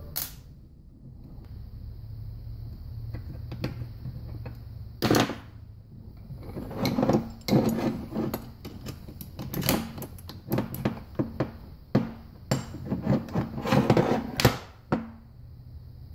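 Cast-metal parts of a Hydra-Matic transmission valve body clink and knock against each other and against a metal workbench as they are fitted together by hand. The handling runs as a quick string of sharp clinks from about five seconds in until near the end, over a steady low hum.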